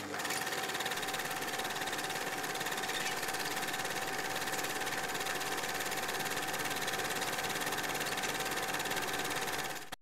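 Film projector sound effect: a steady, rapid, even mechanical clatter with a constant hum, stopping near the end.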